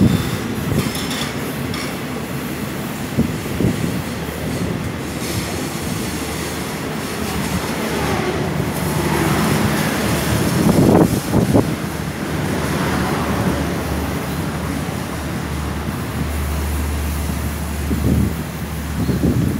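Passenger train coaches rolling past on a curve: a steady rumble of steel wheels on the rail, with some wheel squeal and a few knocks over the track.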